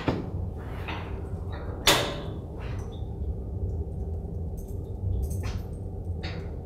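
A small lidded box with a die inside being handled: a sharp click about two seconds in, then softer clicks and knocks as it is closed and set back down on the tabletop, over a low steady hum.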